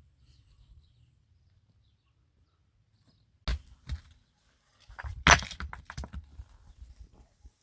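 Quiet at first, then a sharp knock about three and a half seconds in and, about five seconds in, a short run of clicks and clattering knocks.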